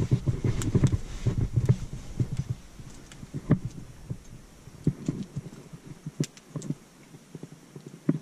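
Handling noise of a climber pulling a rope in hand over hand against a body-mounted camera: a low rumble with many small clicks and knocks for the first couple of seconds, then sparser, fainter clicks and knocks.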